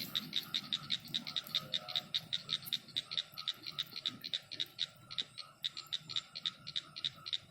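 A frog calling at night: a fast, even series of short high-pitched pulses, about five or six a second, repeated without a break.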